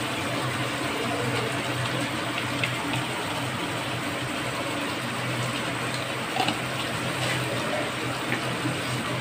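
Oil sizzling steadily in a kadai as potato pieces fry on a gas stove, with a steady low hum underneath and a few small clicks about six and a half seconds in.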